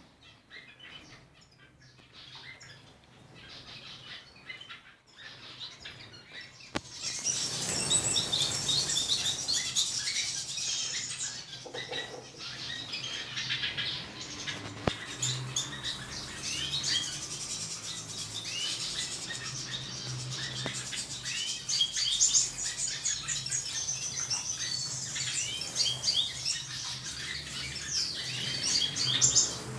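Mixed flock of small aviary birds, finches and canaries, chirping and calling over one another in many short high notes. Faint at first, the chorus swells about seven seconds in and stays busy.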